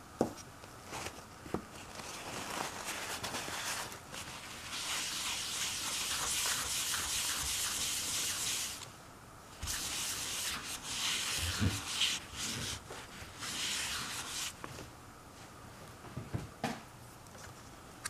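Paper towel rubbing over a round stone inkstone and an ink stick in long, dry wiping strokes, with a few light knocks in between.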